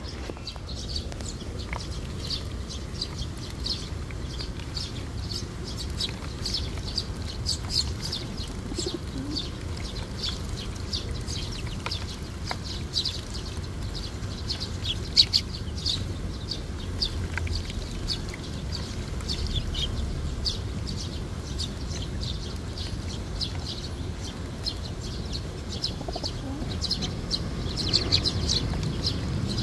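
A flock of Eurasian tree sparrows chirping in many short, high chirps while they bathe, fluttering their wings in shallow water, over a steady low rumble.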